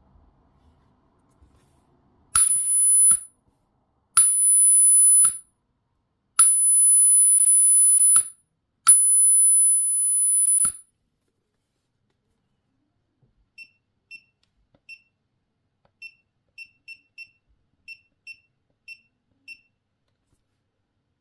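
Electronic ultrasonic pest and dog repeller giving four bursts of a steady, very high-pitched tone, each one to two seconds long and opening and closing with a click. Later, about a dozen faint, short, lower beeps in an uneven pattern.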